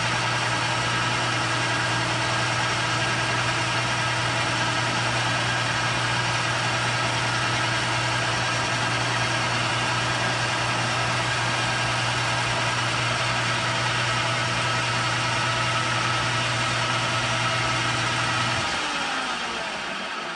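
Metal lathe running steadily, with a constant hum and whine, while a center drill in the tailstock chuck bores into the end of a steel shaft. Near the end the motor is switched off and the lathe winds down, its tones sliding lower as it fades.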